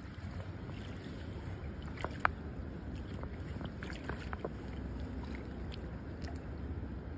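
River-bank ambience: a steady low rumble of wind and moving water, with a few faint clicks about two seconds in and again near four seconds.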